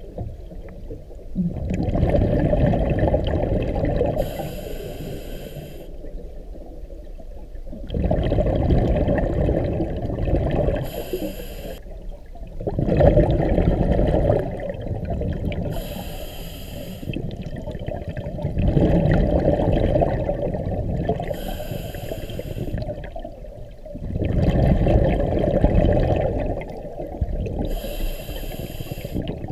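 Scuba diver breathing through a regulator underwater: a short hiss on each inhale and a louder, low, bubbling rumble of exhaled bubbles on each exhale. The breaths repeat about every five to six seconds, five in all.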